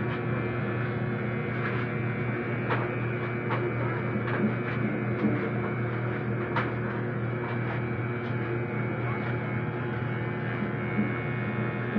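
Electric hair clipper buzzing steadily as it runs over a scalp, with scattered small clicks.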